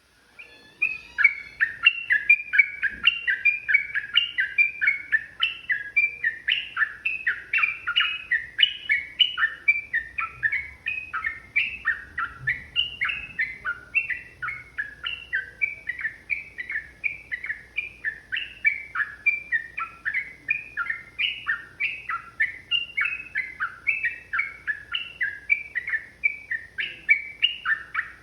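Yellow-vented bulbul (trucukan) singing a long, rapid, unbroken run of bubbly chattering notes, about four a second. It starts about a second in.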